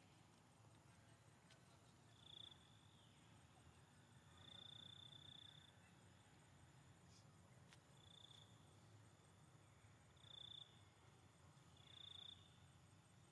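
A cricket trilling faintly in five short, high-pitched trills a couple of seconds apart, the second one held longer, over a faint low hum.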